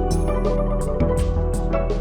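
Background music: an instrumental track with a steady beat, bass and keyboard-like notes.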